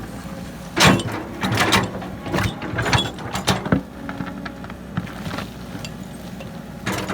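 Heavy earthmoving machine working: a diesel engine drones steadily under a string of sharp metal clanks and rattles in the first few seconds, which then thin out to lighter clicks.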